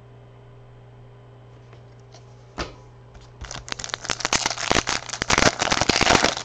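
Foil wrapper of a trading-card pack being torn open and crinkled: a dense crackling rustle that follows a single sharp snap about two and a half seconds in, over a low steady hum.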